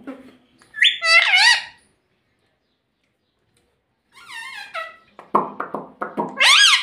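Indian ringneck parakeet calling: a wavering, high-pitched squawk about a second in, then after a pause a string of calls and short chattering notes, the loudest call at the very end.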